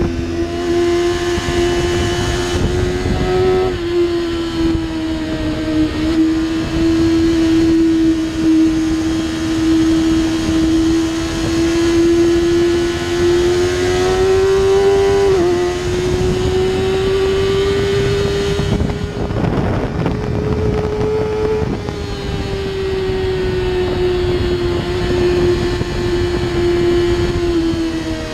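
2007 Kawasaki ZX-6R's inline-four engine through an Akrapovic Evolution exhaust, held at a nearly steady pitch on a long run around the track, rising a little about halfway and dropping away near the end. A burst of wind noise comes in about two-thirds through.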